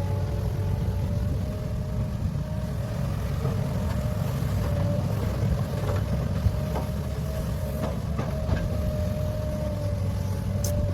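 Heavy diesel earthmoving machine running steadily, with a low engine rumble, a steady whine, and a few sharp knocks and clanks past the middle.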